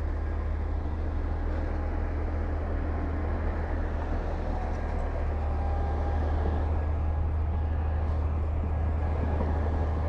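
Heavy diesel engine of earthmoving machinery running steadily, with a deep constant drone, getting slightly louder about six seconds in.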